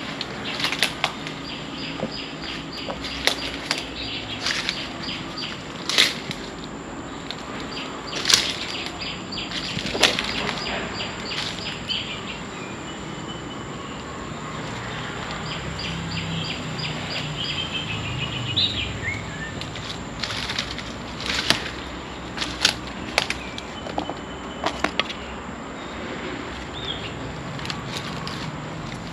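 Dry dead leaves and twigs crackling and snapping underfoot in irregular steps, in two spells. Faint bird calls and a steady high whine sit in the background.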